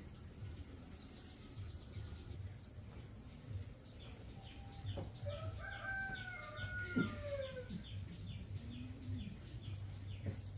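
A rooster crowing once, a long call of about three seconds midway through. A faint, even ticking of about three a second runs behind it.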